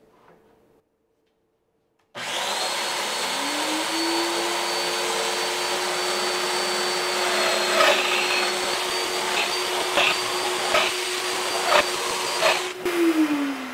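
Festool Domino joiner cutting mortises in a maple board, with its hose-connected dust extractor running. The extractor starts about two seconds in and winds up to a steady hum under the joiner's high whine, and the plunge cuts show as several short louder surges. Near the end the joiner stops and the extractor winds down.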